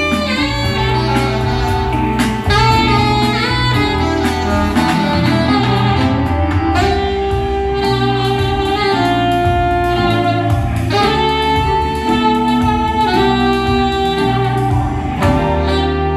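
Live saxophone playing a melodic solo line over a backing with a sustained bass line, continuous throughout.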